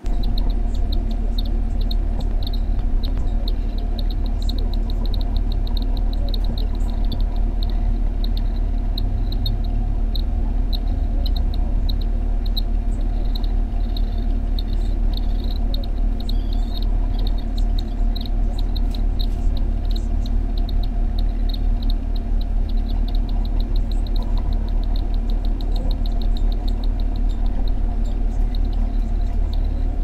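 Cockatiel chicks giving their food-begging calls in the nest box: a fast, rhythmic run of high pulses that keeps going, over a steady electrical hum.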